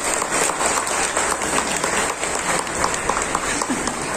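Audience applauding, a dense patter of many hands clapping with crowd voices mixed in.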